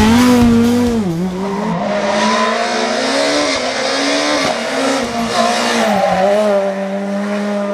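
Rally car engine revving hard through a stage, its pitch dropping and climbing again several times with gear changes and lifts, then holding steady near the end.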